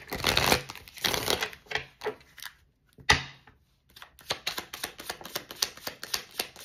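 A deck of cards being shuffled by hand: a swishing of cards over the first second or so, a single sharp snap about three seconds in, then a quick run of card flicks in a rapid patter.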